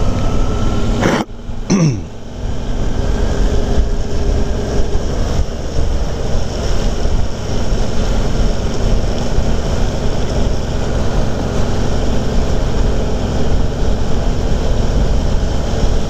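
A motorcycle underway: engine and wind noise rush steadily over the microphone. About a second and a half in, a brief dip in level is marked by a short sound falling steeply in pitch.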